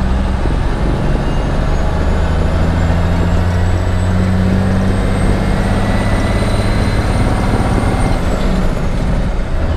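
1987 International Paystar dump truck's diesel engine pulling on the road, heard inside the cab. Its note rises steadily for about eight seconds, with a faint high whistle rising along with it, then both drop near the end.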